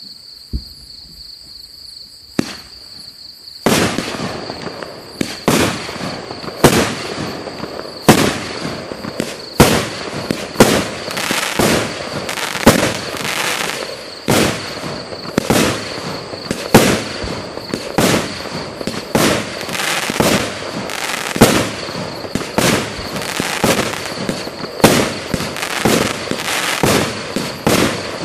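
KS1118 fireworks cake firing: after a few quiet seconds, shots start about four seconds in and follow one another in quick succession, about one strong launch or burst a second with crackling between them, unbroken to the end.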